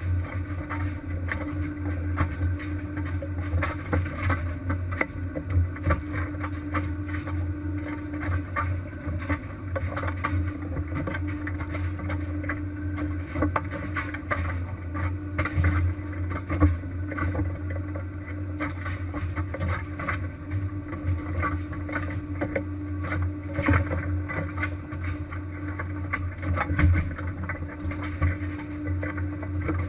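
Fishing vessel's engine running steadily with a low drone and a constant hum, with frequent knocks and clatter on top.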